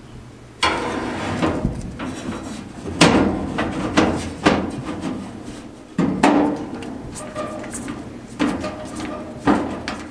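Metal knocks and clanks, about six sharp hits a second or two apart, as a squirrel-cage blower fan unit and its mounting plate are fitted into the back of a steel gas fireplace casing and screwed on by hand.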